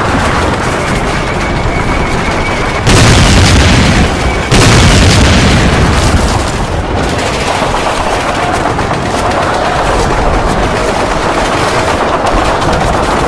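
Battle sound of a war film: dense rapid gunfire throughout, with two much louder explosions, the first about three seconds in and the second about four and a half seconds in, each lasting a second or more.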